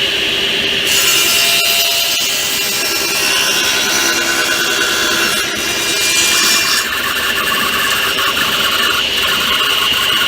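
Table saw running with its blade cutting through timber: a loud, steady high whine with the cutting noise over it.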